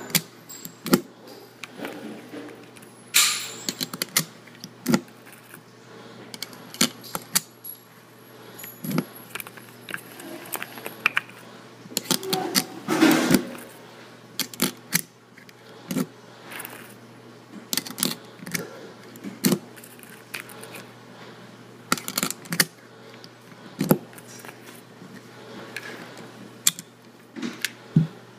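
Irregular metallic clicking and clinking of small hard objects being handled on a shooting-range bench, with a few louder knocks.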